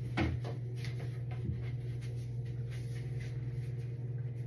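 Faint scratchy rubbing and a few light knocks from hand cleaning, over a steady low hum. The loudest knock comes just after the start.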